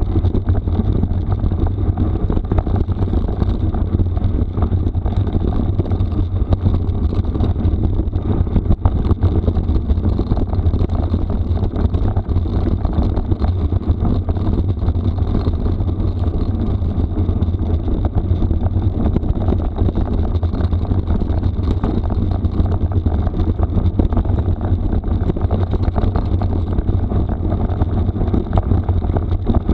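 Steady rumble of wind buffeting the microphone and tyres rolling over a rough gravel forest road, with many small knocks and rattles throughout.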